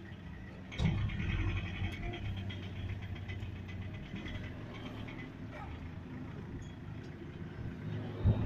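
Vehicle engine running steadily, heard from inside the cabin on a rough dirt road. About a second in it grows louder and a higher whine joins it. There is a sharp thump near the end.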